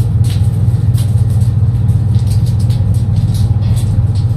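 A loud, steady, low-pitched mechanical hum, like a motor or fan running, with a few faint light ticks over it.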